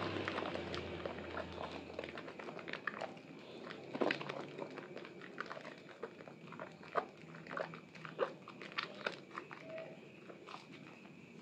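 Hands squeezing and kneading soaked, mushy bar soap in thick lather: wet squelches and small crackling pops, denser for the first two seconds, then scattered and irregular, with a few louder squishes.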